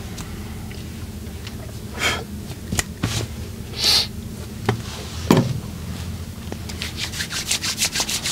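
Hands massaging a person: rubbing strokes on skin and a few sharp clicks, then a quick run of about ten short strokes near the end.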